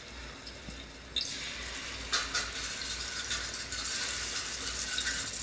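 Chilli-coated fish pieces sizzling in hot oil on an iron tawa: the sizzle jumps up sharply about a second in as a piece goes down and carries on as a steady hiss with scattered crackles.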